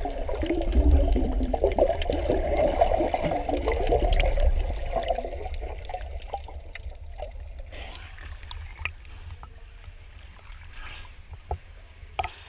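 Muffled underwater sound of water bubbling and gurgling around a camera held below the surface, with a low rumble; busiest in the first half, then fading to scattered faint clicks. A short sharp splash-like click near the end as the camera comes up to the surface.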